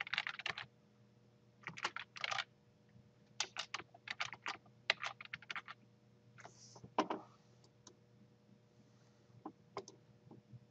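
Computer keyboard typing: short bursts of rapid keystrokes with pauses between, then a louder single click about seven seconds in and a few scattered clicks near the end, over a faint steady electrical hum.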